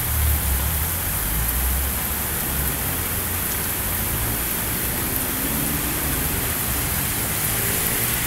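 Heavy rain pouring down on a street, a dense steady hiss. A low rumble is heard in the first two seconds.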